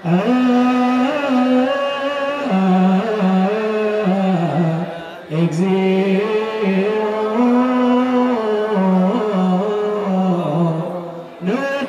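Ethiopian Orthodox liturgical chant in Ge'ez, sung in long held notes that step slowly up and down, with a short break about five seconds in and another near the end.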